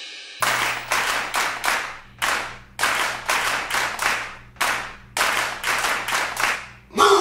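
Hands clapping together in a steady rhythm, about two claps a second, each clap ringing out briefly, over a faint low hum. Loud music breaks in at the very end.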